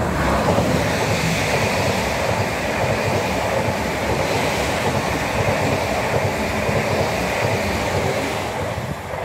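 Stansted Express Class 745 (Stadler FLIRT) electric multiple unit passing close at speed: a loud, steady rush of wheels on the rails that dies away near the end as the last carriage goes by.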